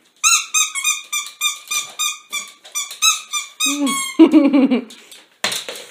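Rubber squeaky ball toy squeezed over and over, giving a quick run of short, high squeaks, about four a second, that stops after about three and a half seconds.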